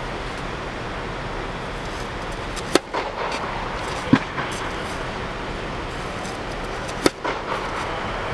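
Tennis racket striking tennis balls: three sharp pops a few seconds apart, over a steady background rush.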